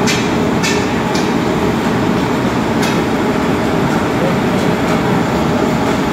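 ADK 100 HP four-pole electric motor running on a test bench: a loud, steady drone with no change in pitch. A few light clicks come in the first three seconds.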